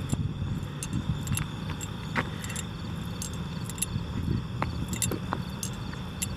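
Footsteps crunching and rustling through dry brush, with irregular small clicks and crackles of twigs and handled gear. A steady high insect chirring runs behind.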